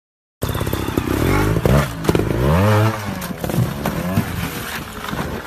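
Motorcycle engine revving, its pitch rising and falling sharply, starting abruptly about half a second in. After about three seconds it gives way to a rougher, noisier sound with scattered clattering knocks.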